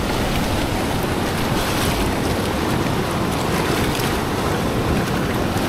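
Steady rushing noise of fast-flowing river water, mixed with wind buffeting the microphone.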